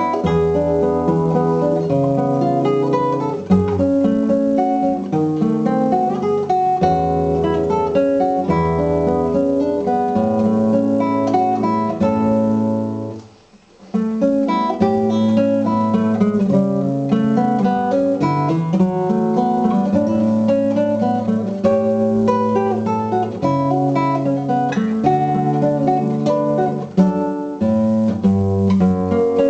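Solo acoustic guitar playing a Paraguayan dance piece, plucked melody notes over a low bass line, with a short break about halfway through.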